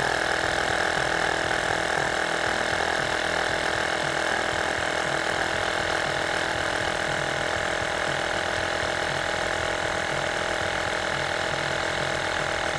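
Built-in air compressor of a Vonder APC 12000 portable jump starter running steadily as it inflates a car tyre, with a constant mechanical hum and a fast, even pulse from its piston.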